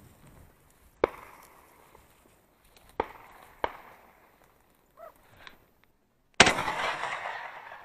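Shotgun shots: three sharp, quieter reports from further off about one, three and three and a half seconds in, then a loud close shot about six and a half seconds in, from the Fabarm XLR5 Waterfowler semi-automatic shotgun fired at a thrush in flight, with a long echoing tail.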